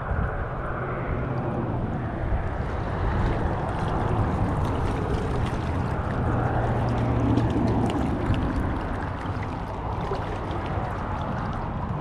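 Steady wind noise on the microphone with water lapping, and a faint low hum that is strongest in the middle.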